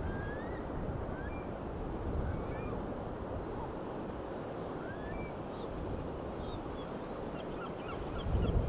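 Wind buffeting the microphone as a steady low rumble, with faint short bird calls over it: a few rising whistles and a quick flurry of chirps near the end.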